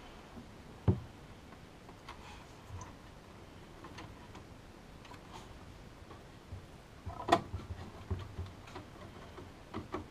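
Scattered small clicks and taps of a small magnetic screwdriver driving motherboard screws into the case standoffs. There are sharper knocks about a second in and around seven seconds in, followed by a quick run of clicks.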